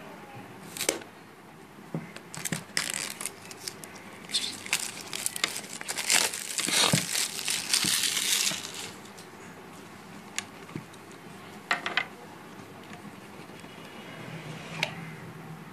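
Clear plastic shrink-wrap being torn and crinkled off a cardboard box, in crackling bursts over several seconds. It is followed by a few light clicks and taps as the box is handled.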